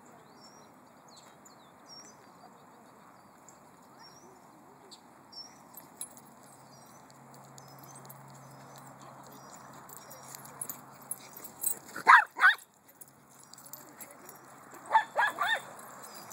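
A dog barking: two sharp barks about twelve seconds in, then three more in quick succession near the end, over faint bird chirps.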